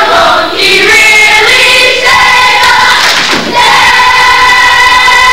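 A chorus of young voices, a school musical's cast, singing together loudly. Their pitch moves until a brief dip about three and a half seconds in, then they hold one long chord.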